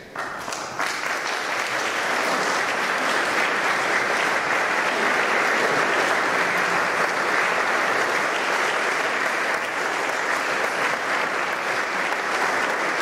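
Audience applause breaking out suddenly at the start and filling within about a second into steady, dense clapping.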